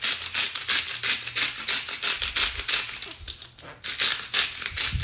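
Hand salt grinder cracking coarse pink Himalayan salt: a rapid run of gritty grinding clicks, with a short pause about four seconds in.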